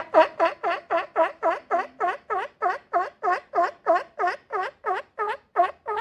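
Sea lion barking in a fast, even series of short calls, about four a second, each call dipping in pitch and rising again.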